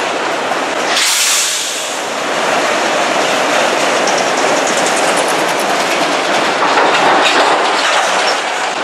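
Freight train of autorack cars rolling past close by: steady wheel-and-rail noise with clickety-clack over the rail joints. Faint high wheel squeals come in around the middle.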